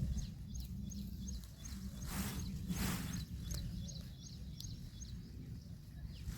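Outdoor ambience: a thin, high chirp repeating evenly about two to three times a second over a low rumble, with two brief rushing swishes about two and three seconds in.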